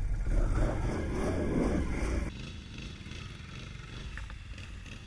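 Can-Am Renegade 800 ATV's V-twin engine running at low speed as the quad starts down an icy slope. About two seconds in the sound drops abruptly to a fainter, steady low engine rumble.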